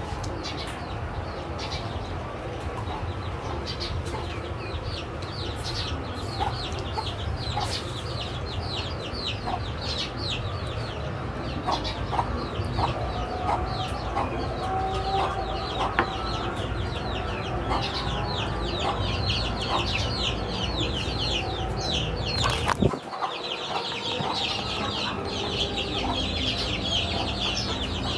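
Chickens in the background: a steady run of rapid, high, falling peeps with scattered clucks. A single sharp knock sounds near the end.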